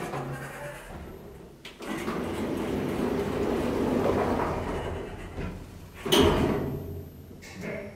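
KONE elevator car's automatic sliding doors closing: a steady rushing slide for a few seconds, then a loud thud about six seconds in as they shut, with a small click near the end.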